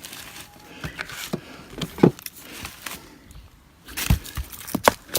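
Scattered knocks, clicks and scrapes of a wooden bee swarm trap box being handled, with a few sharper knocks about two seconds in and again near the end.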